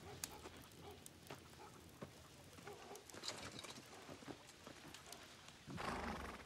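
Quiet farmyard ambience with hens clucking softly now and then, and scattered light ticks. A brief louder rustle comes near the end.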